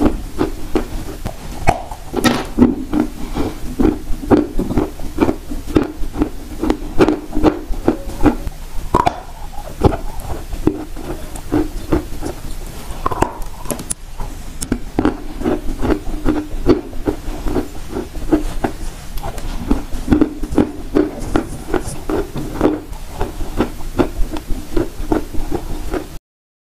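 Close-miked crunching and chewing of dry yellow clay: a steady run of sharp crunches over low, wet chewing thumps. The sound cuts off suddenly near the end.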